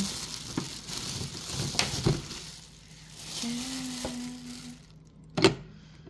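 Clear plastic packaging bag rustling and crinkling, with small handling knocks, as a coffee maker is pulled out of it; one sharp knock near the end is the loudest sound.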